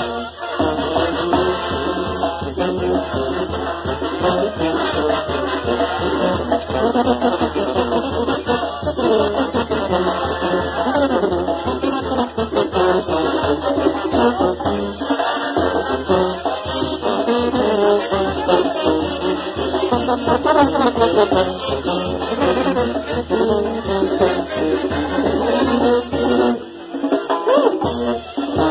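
Live Mexican brass band (banda) playing: sousaphones carry a steady bass line under trumpets and trombones, with cymbals and shaken percussion keeping the beat. The music drops out briefly about two seconds before the end, then comes back.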